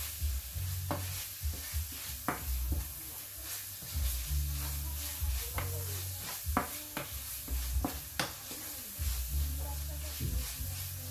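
Minced beef sizzling in a frying pan as a wooden spoon stirs and scrapes through it, with several sharp knocks of the spoon against the pan and recurring dull low thumps.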